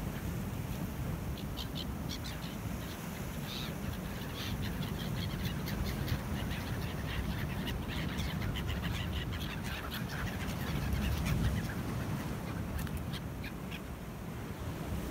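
A flock of gulls calling, many short cries coming thick and fast, thinning out and then picking up again near the end.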